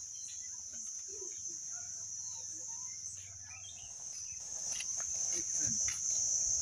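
A steady, high-pitched chorus of insects, growing louder over the last couple of seconds.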